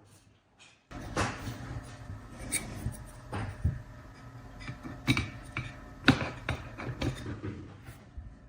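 Hands handling and fitting small drone parts: irregular clicks, taps and rubbing, with the sharpest taps about five and six seconds in.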